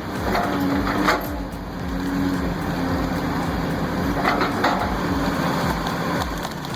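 An excavator's engine runs under load while tree roots and wood crack and snap as a stump is torn out. Sharp cracks come about a second in and twice between four and five seconds in.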